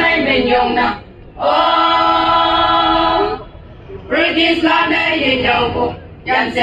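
A group of women singing together unaccompanied, in short phrases with brief breaths between them and one long held note in the middle.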